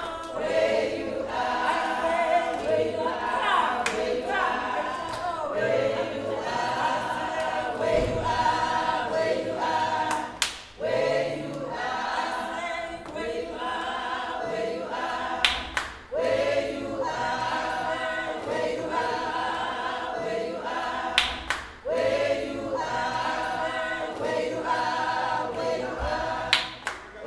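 A choir singing together in several voices, in phrases that break off briefly about every five or six seconds. A sharp hit, like a clap or beat, sounds near several of the breaks.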